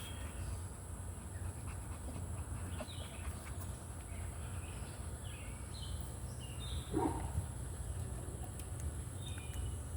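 Three-week-old pit bull puppies giving faint short squeaks and whimpers, with one louder yelp about seven seconds in.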